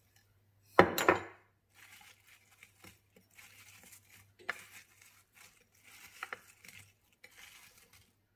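A loud double knock about a second in. Then hands toss sliced apples with sugar and cinnamon on a ceramic plate: soft, irregular shuffling of the slices with a few sharp clicks.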